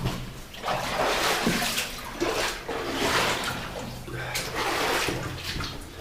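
Footsteps wading through shallow water, sloshing and splashing in repeated surges about once a second.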